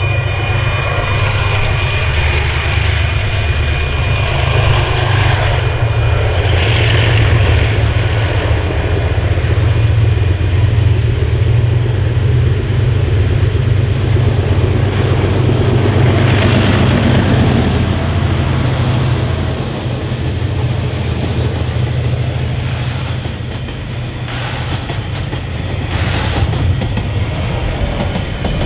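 Diesel-electric freight locomotives, a GE-built DXC leading two DF-class units, working hard in a high notch as they approach and pass with a deep, steady engine drone that is loudest just before the locomotives go by. After that the drone eases, and the loaded container wagons roll past with a clickety-clack of wheels over the rail joints.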